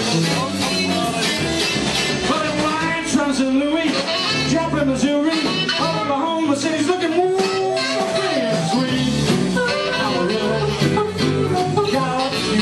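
Live rock and roll band playing electric guitar, bass and drums, with a harmonica taking a lead solo of bent, sliding notes and one held note a little past the middle.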